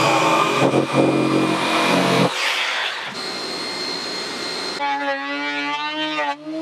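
Woodshop power tools: a Makita jigsaw cutting a rough spruce construction plank, then partway through a benchtop thickness planer's motor running as a board is fed through, its pitch wavering up and down under load.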